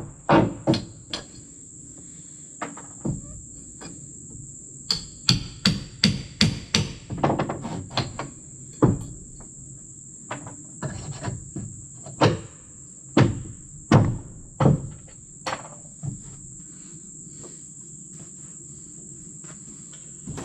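Hammer blows on the porch's old wooden boards: a few quick strikes, then a fast run of blows, then single spaced blows that stop about four seconds before the end. Insects trill steadily and high underneath throughout.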